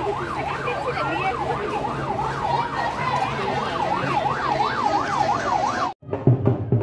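Vehicle siren rising and falling quickly, about three times a second, over crowd chatter. It cuts off suddenly about six seconds in and loud drum beats start.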